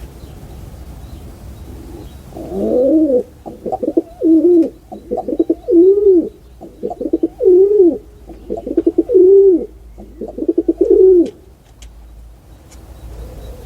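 A pigeon cooing: a run of about five low, throaty coos, each a rapid stutter that swells into a drawn-out arching coo. It starts about two and a half seconds in and stops about eleven seconds in.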